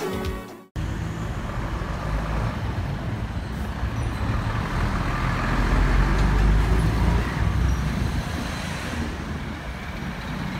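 Steady outdoor rumble of traffic and an electric commuter train running along the elevated viaduct, swelling to its loudest about six seconds in and then easing off.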